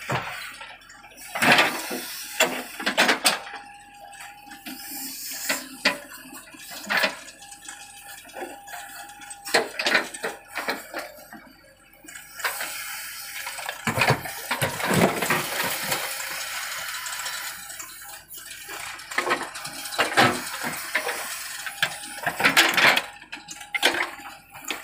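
JCB backhoe loader working earth: irregular knocks and clattering from the bucket and falling soil clods, with a hissing noise underneath.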